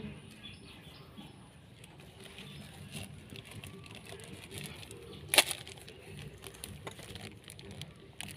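Clear plastic wrap crinkling in the hands as it is twisted and tied around a soil-filled air layer on a branch, with scattered small crackles and one sharp crackle about five seconds in.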